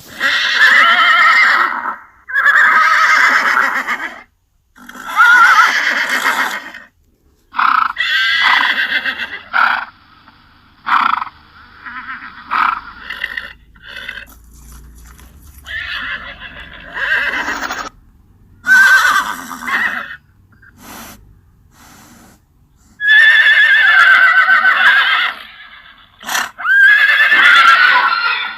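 A horse whinnying repeatedly: about ten loud, wavering neighs, most lasting one to two and a half seconds, with a few shorter calls between them.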